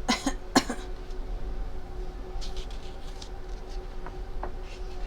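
Two short coughs about half a second apart, a person acting out the flea's cough. A faint steady hum and a few soft rustles follow.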